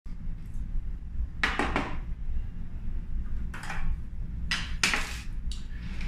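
A few short metallic clatters and scrapes, a second or two apart, as a screwdriver and the smart lock's metal back panel are handled, over a steady low hum.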